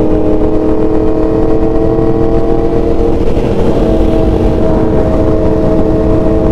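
Motorcycle engine holding a steady drone at constant speed under heavy wind rush; its pitch shifts slightly a little past three seconds in.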